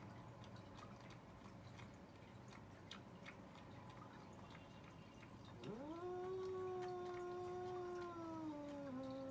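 A domestic cat gives one long, drawn-out yowl starting a little past halfway. It rises quickly in pitch, holds, then slowly sags. It is a warning call in a face-off between two cats.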